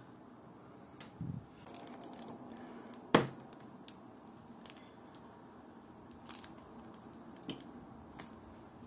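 Close handling noises on a watch crystal press and a plastic zip bag: light rustling and scattered small clicks, with a soft thump just after a second in and one sharp, loud click about three seconds in.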